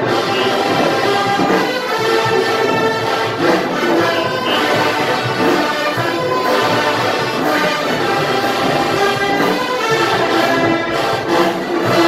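Brass-heavy marching band playing loudly, trombones and trumpets holding full sustained chords that shift every second or two.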